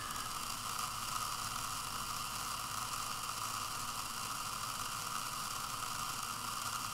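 A Boeing 747 fuel quantity indicator's AC servo motor running steadily, turning its gear train to drive the needle and drum counter down: a constant mid-pitched whine with a hiss over it.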